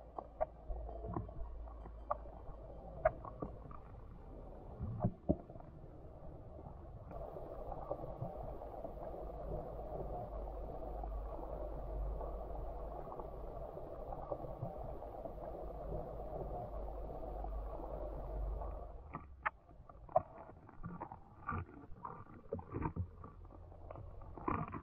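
Muffled underwater sound picked up by a camera submerged on a stream bed: a steady low rumble with scattered sharp clicks and taps. A steadier rushing noise rises about seven seconds in and drops away near nineteen seconds, after which the clicks come thicker.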